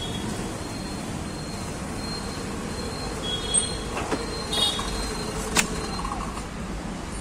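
Petrol pump dispensing fuel through the nozzle into a motorcycle's tank: a steady rushing hum. A few short high beeps come around the middle, and a sharp click about five and a half seconds in.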